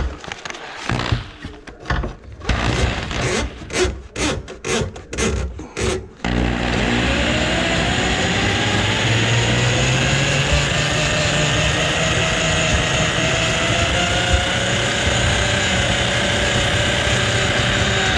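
Corded handheld drum drain auger clearing a grease clog from a kitchen sink drain line: first a run of short knocks and rattles as the cable is fed in, then about six seconds in the motor starts and runs steadily, its pitch rising slightly before it holds.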